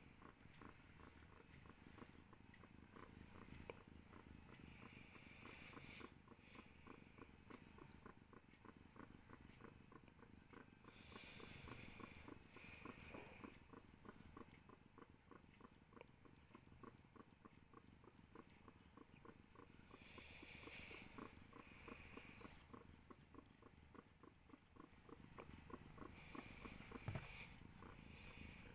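Faint, steady purring of a tortoiseshell mother cat in labour.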